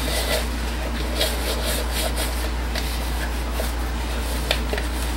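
Paper towel wiping out the inside of a plastic measuring pitcher to dry it: a series of short, irregular rubbing and scuffing strokes.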